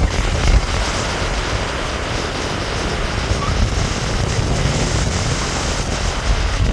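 River water rushing and churning, a loud steady noise with a heavy low rumble that swells briefly near the end.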